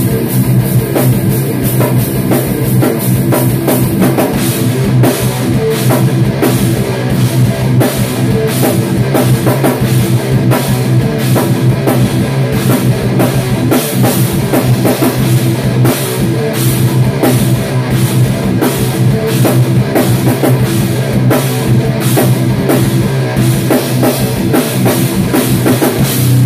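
A rock band playing loud: a drum kit with cymbals driving a steady beat under an electric guitar played through amplifiers.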